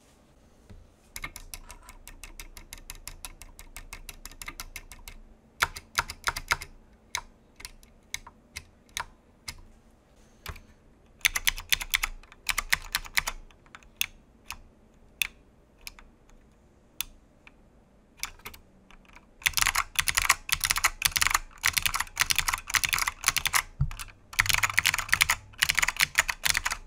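Clicky mechanical keyboard switches being typed on. Runs of fast typing alternate with single, spaced keypresses, and the fastest, loudest typing comes in the last seven seconds.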